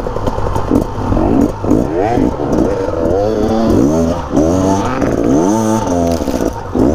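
Off-road dirt bike engine revving hard under load up a steep sandy hill climb, the revs rising and falling again and again as the throttle is worked.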